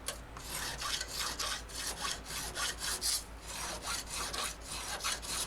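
Three-corner file scraping back and forth across guitar frets to re-crown them after leveling, in quick even strokes about three a second.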